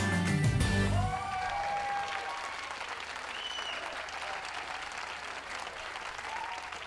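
An audience applauding, with a few faint cheers or whistles. Music plays under the start and ends about a second in.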